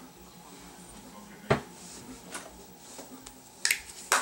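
Makeup brush and blush compact being handled and put down, giving a few sharp plastic clicks: one about a second and a half in, a fainter one after it, and two louder ones close together near the end.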